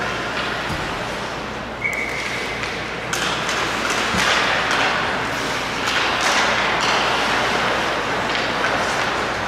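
Ice hockey play in an indoor rink: skates scraping on the ice and sticks and puck knocking, echoing in the arena, with a brief high tone about two seconds in.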